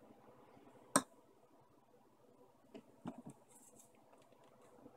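Small PVC pipe pieces and fittings handled and pushed together: one sharp plastic click about a second in, then a few softer knocks and taps near the middle.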